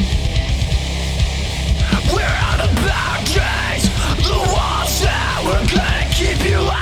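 Heavy metal music with a dense, heavy low end; from about two seconds in, a busy lead part with bending pitches enters over it.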